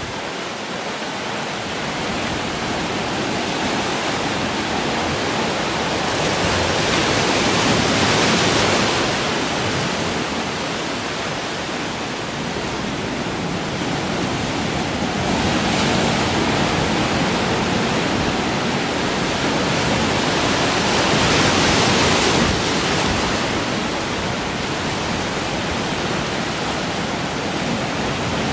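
Ocean surf washing into a rocky cove: a continuous rush of water that swells louder as waves break over the rocks about a third of the way in, again past the middle and around three quarters through, easing back between them.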